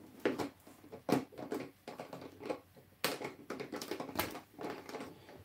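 Irregular clicks and taps from small parts being handled by hand while plumbing in a misting system.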